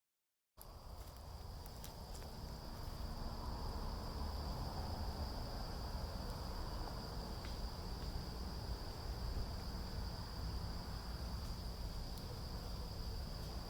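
Evening chorus of insects in the woods: a steady, high-pitched trill over a low rumble, with a few faint clicks. It starts after a brief silence.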